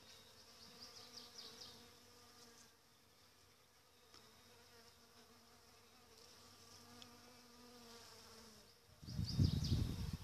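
Honeybees buzzing faintly and steadily as they forage among apricot blossoms. A much louder low rush comes about nine seconds in.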